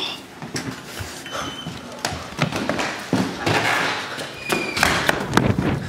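A string of irregular thumps and taps.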